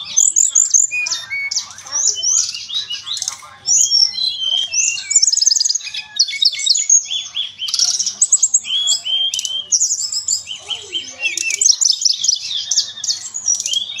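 Songbird singing without pause: a fast, varied stream of high chirps, trills and short whistles.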